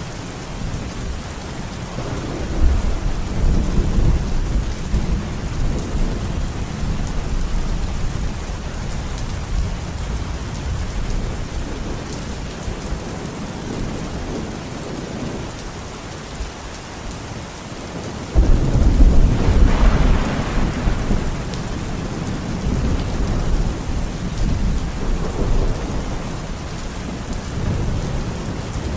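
Steady rain in a thunderstorm, with thunder rumbling low a few seconds in and a louder thunderclap that starts suddenly about two-thirds of the way through and rolls on for a couple of seconds.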